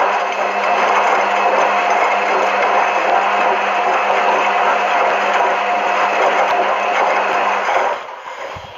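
An electric motor-driven appliance running steadily, a whirring noise over a constant hum, which drops away about eight seconds in as it is switched off.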